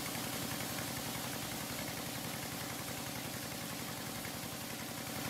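Engine-driven water pump running steadily with a fast, even pulse, under the hiss of a high-pressure hose jet spraying onto a riverbank. The jet is washing the bank apart to get at the gold.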